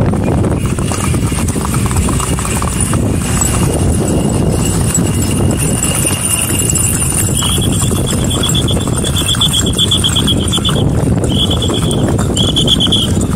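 Hooves of several horses clip-clopping on a tarred road as riders pass at a trot. A high, rapidly pulsing trill comes in about seven seconds in and breaks off twice near the end.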